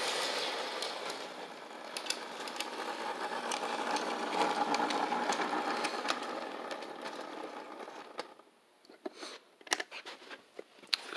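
Toy electric train running on metal track: a steady motor whir with wheel clatter, loudest about halfway through as it passes close, cutting off about eight seconds in. A few light clicks and knocks follow.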